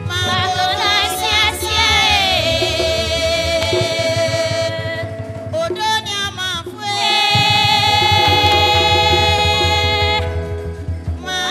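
Live singing, a woman's lead voice with other voices, over a band with drums, guitar and keyboard. The singers hold long, wavering notes, and the low accompaniment drops out briefly past the middle.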